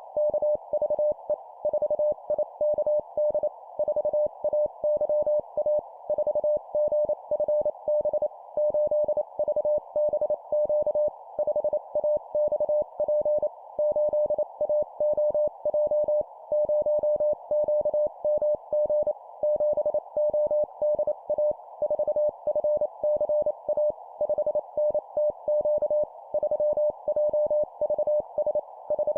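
Morse code (CW) sent at 25 words per minute as a single steady tone keyed in rapid dots and dashes, in four-character groups of a number followed by three letters, over a constant hiss.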